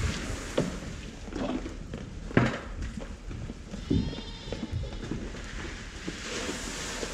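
Sheep bleating and jostling at a wooden fenceline feeder as feed is poured into the trough, with several sharp knocks, the loudest about two and a half seconds in.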